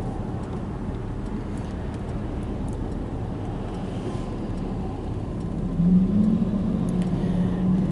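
Road and engine noise inside a moving car's cabin, steady throughout; about two seconds before the end a steady low hum joins in and holds.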